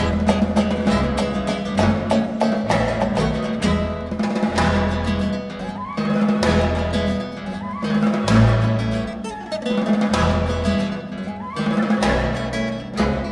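Classical guitar playing quick plucked figures over a string orchestra with low bass notes, in a lezginka-style concerto movement. Several short rising glides sound in the middle.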